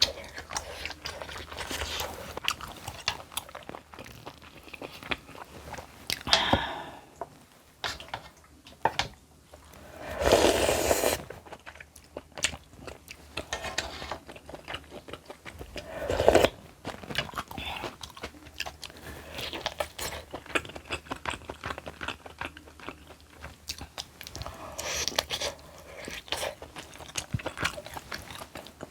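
Close-miked chewing and crunching of food, with many small crisp crunches and a few louder, longer eating noises, the biggest about a third of the way in.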